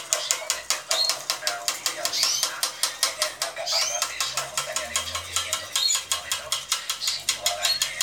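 A flock of caged domestic canaries chirping and calling together, short high arched notes over a rapid run of sharp clicks.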